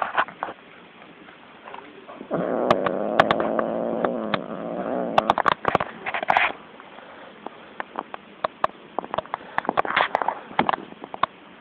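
A cat growling, one long low growl of about three seconds starting a couple of seconds in, the sound of a cat guarding a toy it holds in its paws. Many sharp clicks and scratches come before and after it, with short hissy bursts.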